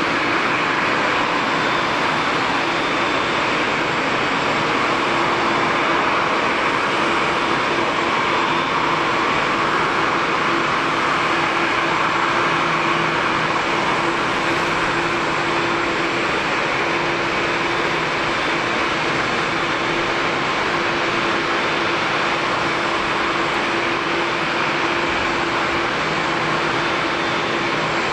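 Steady jet turbine whine and rushing hiss from a Boeing 787 standing near its gate, with a steady low hum and a thin high tone held throughout.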